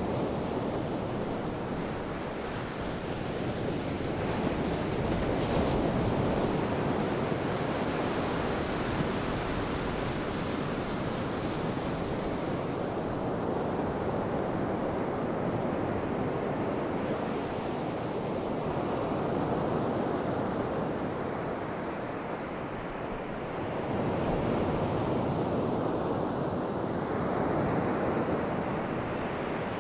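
Ocean surf breaking on a sandy beach: a continuous rushing wash of waves that swells louder as each set of breakers comes in and eases off between them.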